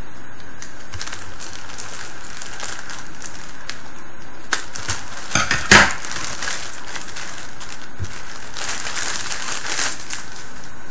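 Crinkling and rustling of packaging as the contents of a camcorder box are handled and pulled out, with a louder burst of crackles about halfway through.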